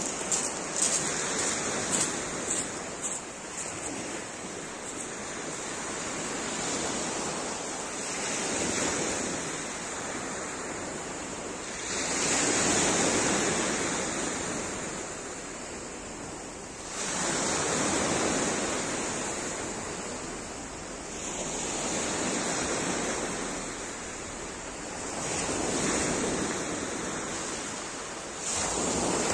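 Sea waves breaking and washing up a pebble beach, the surf swelling and fading every four to five seconds.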